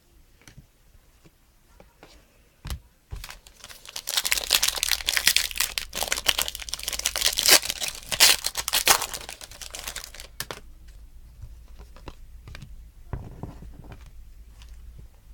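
A trading-card pack wrapper being torn open and crinkled, loud and crackling for about six seconds starting around four seconds in, then lighter rustling.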